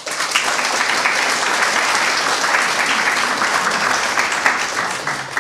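Audience applauding, starting suddenly and beginning to die away near the end.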